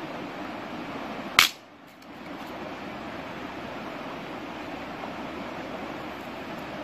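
Steady rushing of a stream, broken by a single loud sharp crack about one and a half seconds in.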